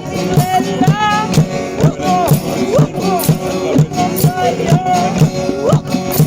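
Music with a steady beat, shaken percussion like maracas or a tambourine, and a gliding melody line.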